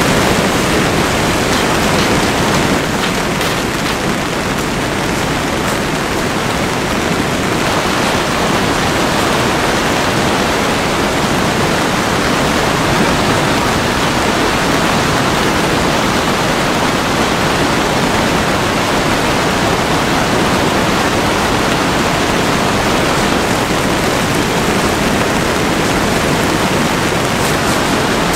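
Heavy rain pouring down steadily, a dense, even hiss with no let-up.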